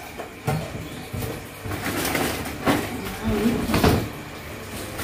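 Dry fried crackers (kerupuk) rustling and clattering against plastic as they are tipped and handled into a plastic storage jar, in several short bursts, the loudest near the end.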